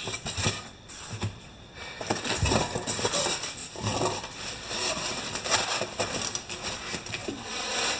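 Polystyrene foam packing pieces and bubble wrap being handled and pulled out of a cardboard shipping box: irregular crinkling, rustling and scraping, with a few soft knocks.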